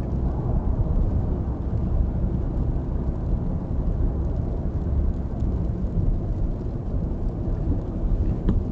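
Steady low rumble of tyre and road noise from a car cruising at about 65 km/h on a wet highway, heard inside the cabin through a dashcam's built-in microphone.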